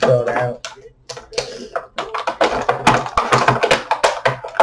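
Hard plastic action-figure packaging being handled and pried at: a quick, irregular run of clicks, taps and crinkles as small accessories are worked free of the plastic tray.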